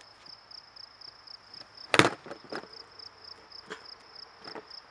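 Skateboard knocking down sharply onto a painted board laid on the ground about two seconds in, followed by a few lighter knocks as he steps onto it. An insect chirps in a fast, even pulse behind it.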